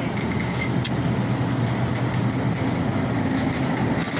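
Wire shopping cart rolling along a store floor: a steady low rumble from its wheels, with light clicking and rattling scattered through the second half.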